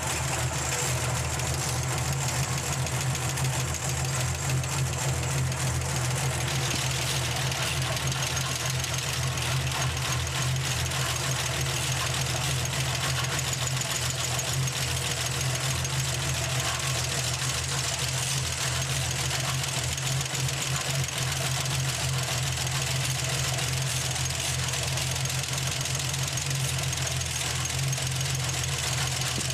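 Inline six-cylinder engine idling with its rocker gear exposed, the valvetrain ticking and clattering as the hydraulic lifters are set with the engine running: each rocker adjuster is backed off until the lifter rattles, then slowly tightened until the rattle goes. The clatter grows brighter about six seconds in.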